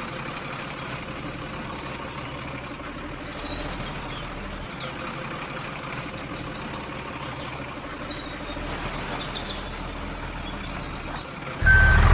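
Steady outdoor ambience with a few faint bird chirps. Near the end a vehicle engine suddenly comes in loud, with a reversing beeper sounding at an even pace.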